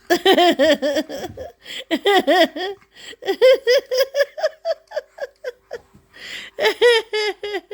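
A person laughing hard in several long runs of quick, rhythmic pulses, with short breaths between them.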